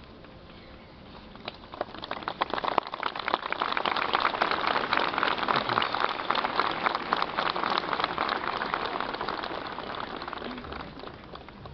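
Crowd applauding: the clapping starts about a second and a half in, is loudest in the middle and dies away near the end.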